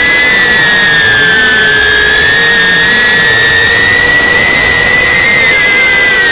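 A drone's motors and propellers whine steadily, heard close up through its own camera's microphone. The pitch dips slightly about one and a half seconds in and rises again later.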